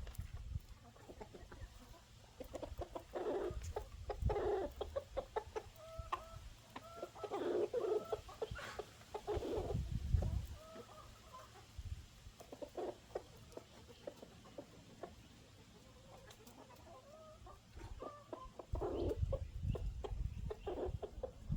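A flock of chickens clucking in short arched notes while feeding on dried grubs scattered on the ground, with many sharp ticks and bursts of low rumble.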